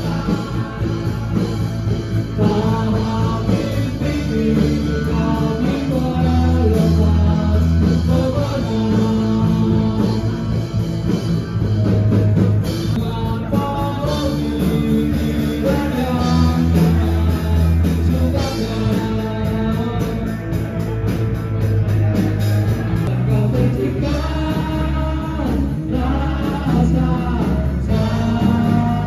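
A rock song with sung vocals, guitar, bass and drum kit.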